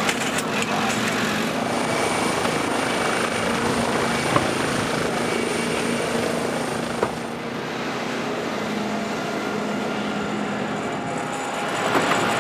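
Helicopter running with a steady drone, with two short clicks partway through.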